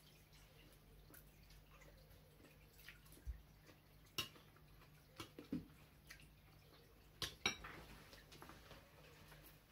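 A spoon clinking against a bowl during eating: scattered sharp clinks, with the loudest pair about seven seconds in.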